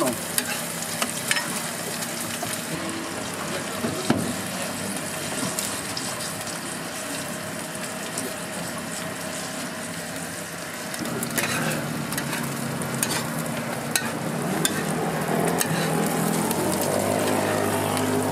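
Egg patties sizzling in hot oil on a flat steel griddle, with a metal spatula scraping and clicking against the griddle several times as they are lifted and flipped.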